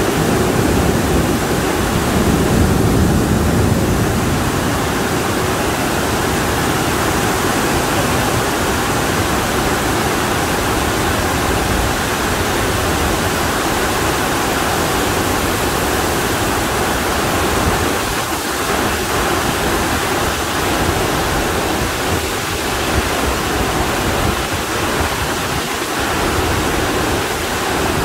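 Very heavy monsoon rain pouring down: a dense, steady hiss of falling water.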